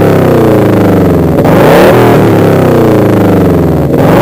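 2005 Subaru Impreza WRX's turbocharged flat-four engine blipped through an Afterburner Vortex centre section and silencer. The revs are dying away at the start, climb sharply about a second and a half in, then sink slowly for a couple of seconds before climbing again near the end.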